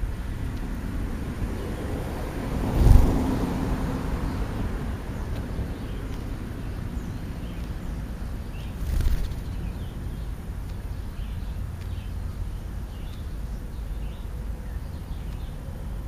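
Steady low outdoor rumble with two louder whooshes that swell and fade, about three seconds in and again about nine seconds in. Faint short bird chirps come in from about halfway on.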